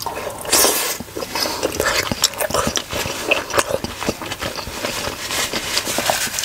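Mouth sounds of biting into and chewing a large steamed pork momo (dumpling): close, irregular chewing with many small clicks, loudest just after the bite, about half a second in.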